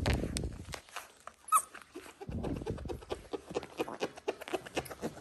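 Dalmatian puppies scuffling and playing, with many small clicks and knocks and a few dull low thumps. There is one brief high squeak about one and a half seconds in.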